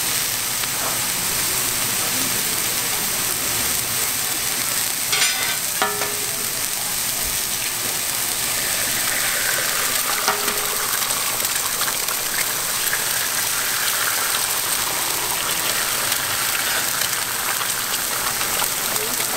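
Raw ground-meat burger patties and eggs sizzling on a hot flat-top griddle, a steady frying hiss. There are a few sharp taps about five and ten seconds in, and the sizzle grows brighter from about nine seconds in as eggs go onto the griddle.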